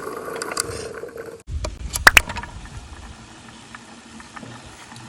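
Small electric motor of a toy appliance whirring, cutting off about a second and a half in. Sharp plastic clicks follow, then a lower, quieter hum.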